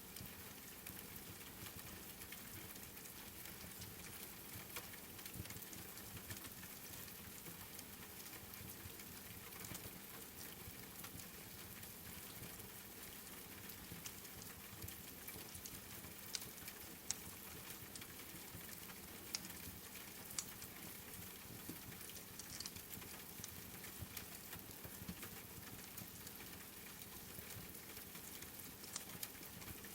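Steady rain hiss mixed with the soft crackling of a wood fire, with a few sharper pops about halfway through.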